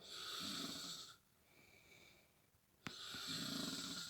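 A sleeping pet snoring: two long, rattling snore breaths, one at the start and another about three seconds in, with a quieter breath between them. A short click comes just before the second snore.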